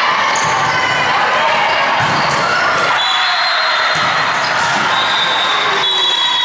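Indoor volleyball rally: the ball being struck and players moving on the court amid continuous voices and shouting from players and spectators.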